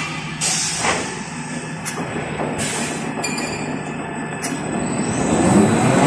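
Toilet paper and kitchen towel converting machine's embossing and glue-laminating section running, a steady mechanical hum with scattered sharp clicks. About five seconds in, a rising whine comes in as the machine picks up speed.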